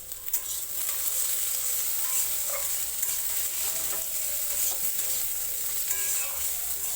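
Chopped prawns sizzling in mustard oil in a hot kadai with fried onion and potatoes, stirred with a spatula that clicks and scrapes against the pan. The sizzle jumps up about a third of a second in and holds steady.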